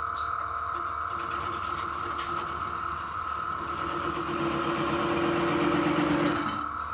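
Record Power DML320 wood lathe running with a steady whine while a chisel cuts the small spinning wooden piece. The cutting sound grows louder over the second half and stops suddenly near the end as the tip of the piece is parted off.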